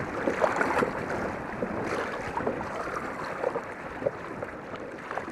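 Strong wind buffeting the microphone, with choppy water splashing and lapping against a kayak as it is paddled.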